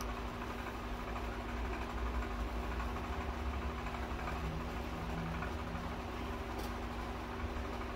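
Electric room fan running, a steady hum with a constant low tone.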